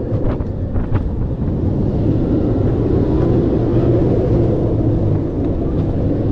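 A steel racing roller coaster train running at speed, a steady loud rumble of its wheels on the track mixed with rushing air. There are a couple of sharp knocks within the first second.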